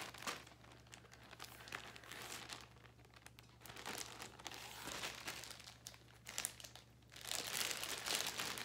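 Crinkling and rustling of a small plastic bag being handled, with scattered sharp clicks; it gets louder near the end.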